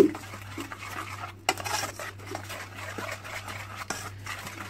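A utensil stirring and scraping in a metal saucepan, with a few sharp clinks against the pan, as a thin béchamel mixture is mixed smooth to keep it from lumping.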